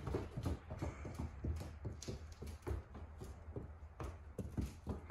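Small goat hooves clattering on a wooden floor as two Nigerian dwarf goats trot about: a quick, irregular run of light knocks that thins out after the first couple of seconds, with a few sharper single steps near the end.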